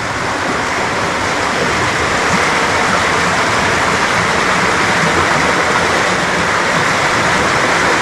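Shallow mountain stream running over stones and gravel: a steady rush of water.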